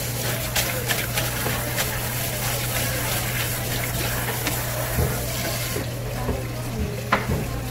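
Tap water running as conger eel innards are rinsed by hand, with small knocks and splashes; the water stops about six seconds in. A steady low hum runs underneath.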